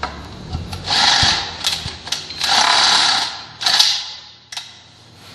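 A drill with a 3/8-inch bit boring out holes in a steel barricade crossbar, cutting in three short bursts with a few metallic clicks between them.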